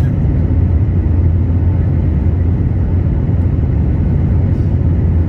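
Airliner cabin noise: a steady low drone of the turbofan engines and rushing air, heard from inside the passenger cabin.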